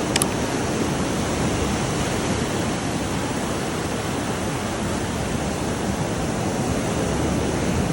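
Steady rushing of ocean surf at the beach, with a short click about a quarter of a second in.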